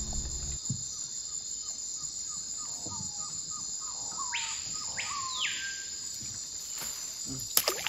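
Night rainforest chorus: a steady, high insect drone of crickets. Over it comes a quick run of short falling calls, about three a second, from about a second in, and in the middle a louder call that rises and falls twice. A few sharp clicks come near the end.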